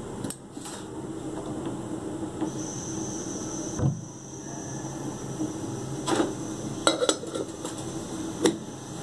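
A steel pot of liquid boiling hard on a gas burner, a steady noise, with a dull knock about four seconds in and several sharp metallic clinks in the last few seconds.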